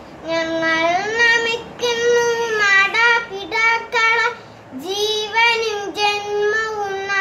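A young boy singing a Malayalam school prayer solo, unaccompanied, in held notes that slide between pitches, with short breaks between phrases.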